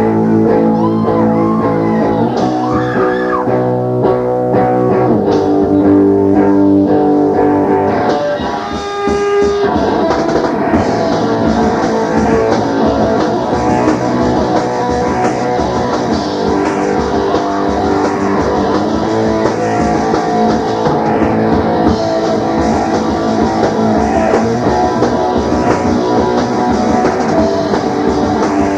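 Rock band playing live: electric guitar chords ring out for the first several seconds, then the full band with drum kit comes in about nine seconds in and drives on steadily.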